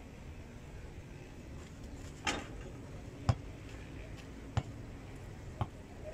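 A basketball hitting hard surfaces: one sharper knock about two seconds in, then dull thuds of the ball bouncing on packed dirt, roughly one a second.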